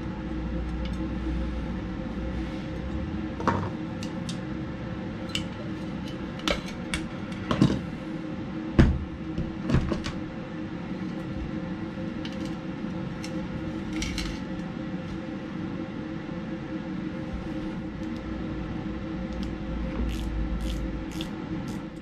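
Sharp metallic clicks and knocks from a refrigerator compressor being taken apart by hand: its steel shell and motor parts knock against each other and the workbench. The knocks come irregularly, the loudest about nine seconds in and a quick run of clicks near the end, over a steady hum.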